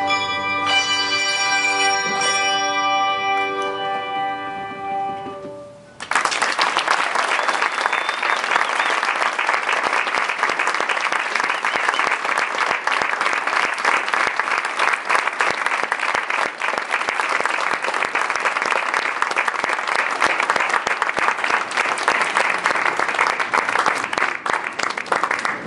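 A musical ensemble's last chord rings and fades over about six seconds, then the audience bursts into steady applause that continues through the rest.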